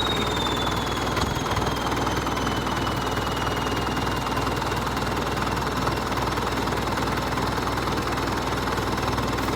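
Vehicle engine running steadily with a low hum. A thin high whine slowly falls in pitch over about the first six seconds.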